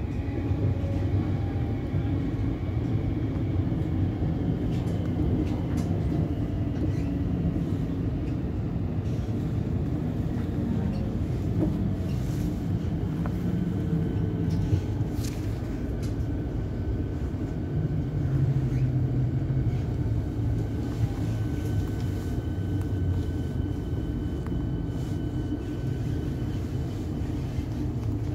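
Siemens Nexas electric train heard from inside the carriage, running along the track with a steady low rumble of wheels on rail. A faint steady whine sits above the rumble through the middle as the train slows into a station.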